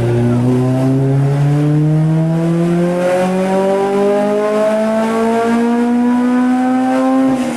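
Car engine on a chassis dyno at wide-open throttle, revving up steadily through one gear for about seven seconds, then the throttle is lifted near the end and the revs fall quickly.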